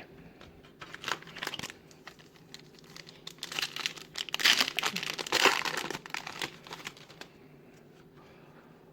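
Wrapper of a 2017-18 Panini Hoops card pack crinkling as it is torn open and handled: irregular crackling, loudest in the middle few seconds, dying away after about seven seconds.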